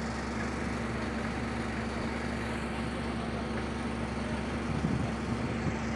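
Engine of a horizontal directional drilling rig running steadily at constant speed, a steady drone with a low hum beneath it.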